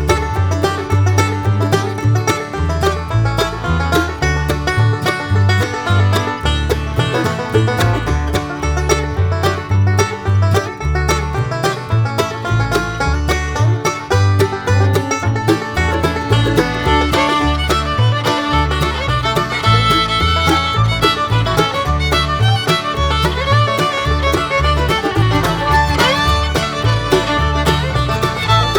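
Bluegrass-style instrumental background music with banjo and fiddle over a steady bass beat.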